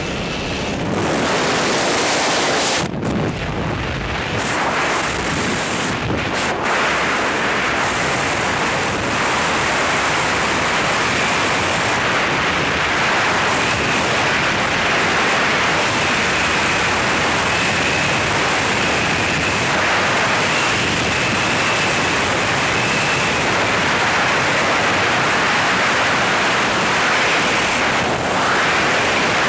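Rushing wind of a tandem skydive freefall blasting over the microphone, loud and steady, rising about a second in, with a few brief gusty dips early on.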